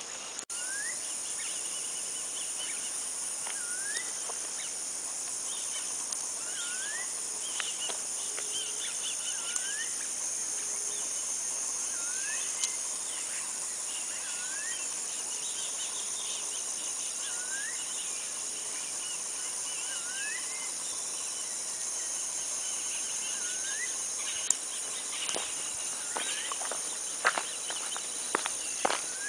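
Steady high-pitched insect chorus with a bird repeating a short rising whistle every second or two. Footsteps crunch on a stony dirt track near the end.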